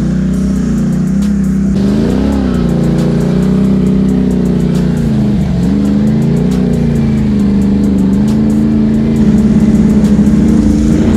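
ATV engine running as the quad is ridden across rough grass, its pitch rising and falling with the throttle several times and getting slightly louder near the end.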